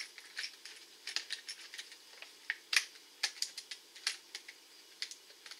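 Clear plastic lure packaging being handled and pressed shut: irregular sharp clicks and crackles, a few a second.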